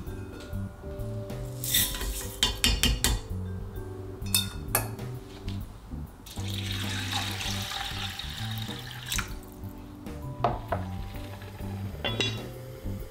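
A metal mesh strainer of soaked rice clinks against an enamel bowl as it is drained. Then water is poured into a Le Creuset cast-iron pot of rice for about three seconds, a steady hiss, and the iron lid is set on with a couple of clacks near the end. Soft background music plays throughout.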